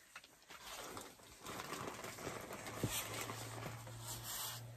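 Rustling and handling noise close to the microphone as yarn skeins in a plastic bag are moved about, with a few small clicks. A low steady hum joins about three seconds in.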